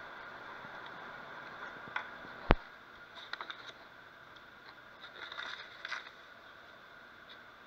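Sauce bubbling and sizzling in a frying pan on the stove, with a single sharp click about two and a half seconds in, after which the sizzle is quieter. Crinkling of a plastic bag comes in short crackly bursts, mostly around five to six seconds in.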